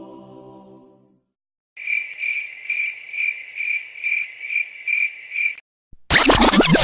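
A stock cricket sound effect: cricket chirping in an even rhythm, about two to three chirps a second, for nearly four seconds. Before it, a sustained chant-like tone fades out within the first second; near the end a louder burst of many quickly falling whistle-like tones cuts in.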